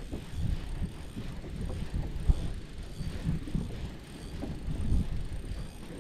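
A spinning fishing reel being cranked to wind in line, over low rumbling wind on the microphone with irregular soft bumps. There is a sharper knock about two seconds in.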